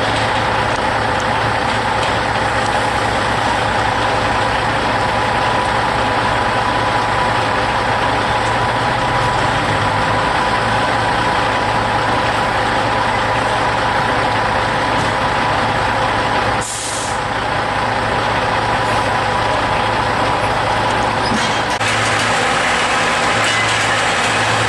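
Logging truck's diesel engine running steadily under way. Roughly two-thirds of the way through comes a short, high hiss of released air, and near the end the engine note shifts slightly.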